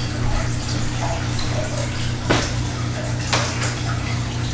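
Steady low hum and hiss of room noise, with two sharp clicks about two and three seconds in as a hanging planter is hooked up.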